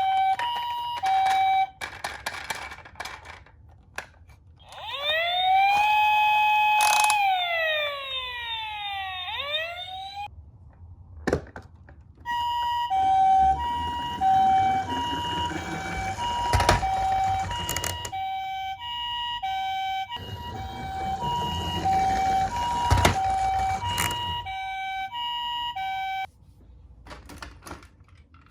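Toy ambulance's electronic siren: a two-tone high-low ambulance call alternating roughly once a second, interrupted for about five seconds by a wail that rises and falls. Under the later two-tone there is a rolling rattle and two sharp clicks, and the siren cuts off near the end.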